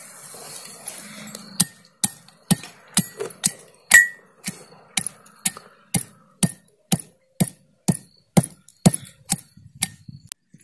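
Pestle pounding in a brass mortar: a steady run of sharp knocks about two a second, starting about a second and a half in, one stroke about four seconds in ringing with a metallic tone.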